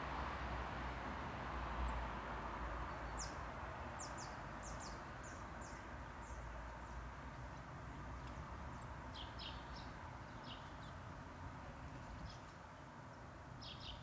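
Small garden birds calling: short high chips in quick runs of a few notes, about three to six seconds in, again around nine to eleven seconds, and once more near the end, over a steady outdoor background hiss that eases off slightly.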